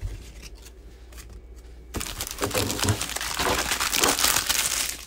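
Foil wrapper of a sports-card pack crinkling loudly as it is handled and torn open, starting about two seconds in.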